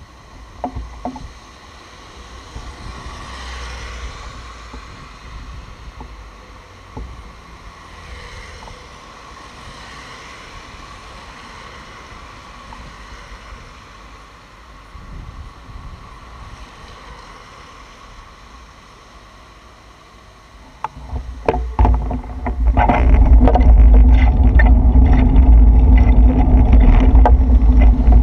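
Road traffic on a rain-soaked road, with tyres hissing on the wet surface as vehicles pass in swells. About 21 seconds in, a much louder, close rumble with rattles and knocks takes over.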